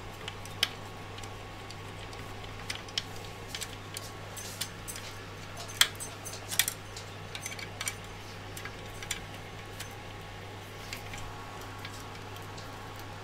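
Small precision screwdriver driving a screw into a 3D-printed part, with irregular light clicks and ticks of the tool and fingers, the sharpest about six seconds in, over a steady low hum.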